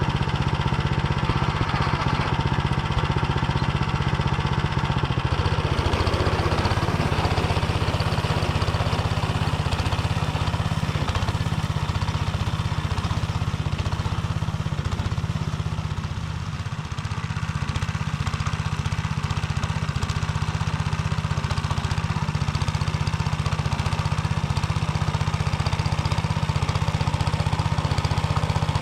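Motor Sich walk-behind tractor's engine running steadily under load while its rotary tiller mills barley stubble, with a brief dip in level about halfway through.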